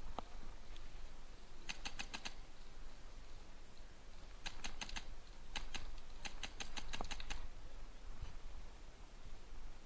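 Airsoft gun firing four short bursts of rapid shots at about eight shots a second: five, then five, then two, then about seven.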